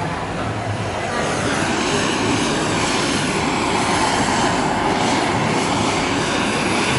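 Handheld kitchen gas blowtorch running with a steady hiss that starts about a second in, its flame searing salmon nigiri aburi-style.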